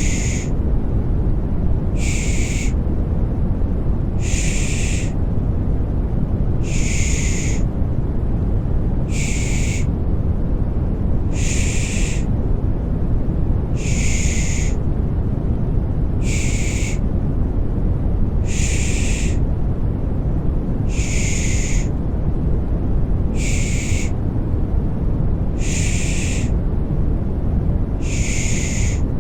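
Rhythmic 'shh' shushing (the Turkish 'pış pış' lullaby shush), a short hiss repeating about every two and a half seconds over a steady deep white-noise rumble, used to soothe a baby to sleep.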